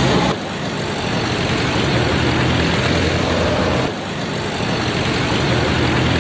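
Steady road traffic noise with motor vehicle engines running, shifting abruptly about half a second in and again about four seconds in.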